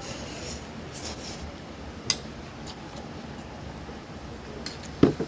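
Mealtime eating sounds: soft chewing and the odd small click of a dish or utensil, with a short louder sound near the end.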